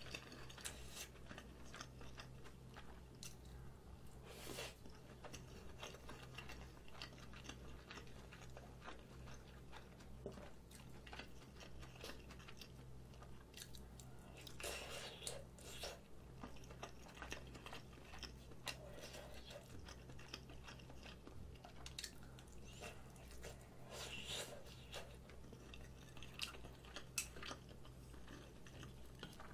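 Close-miked chewing and soft wet mouth sounds of a person eating mouthfuls of rolled omelette and Spam, with small irregular clicks and a few louder chewing patches.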